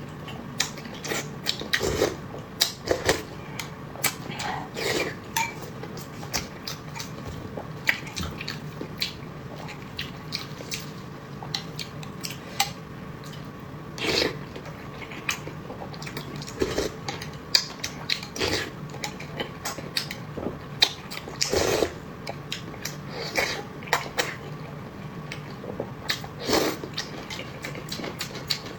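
Close-miked eating: many irregular clicks and knocks of utensils against dishes, mixed with biting and chewing, over a faint steady hum.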